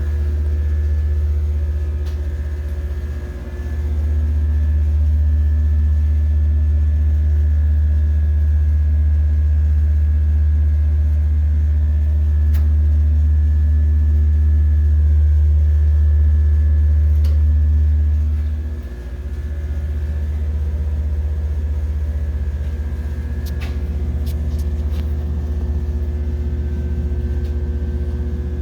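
Steady, loud low machinery hum with a few fixed tones above it, typical of elevator drive machinery running. It dips briefly about three seconds in and again partway through, then carries on a little lower.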